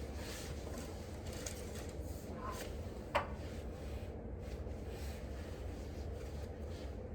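Quiet room tone: a steady low hum with faint rustling, and one sharp click about three seconds in.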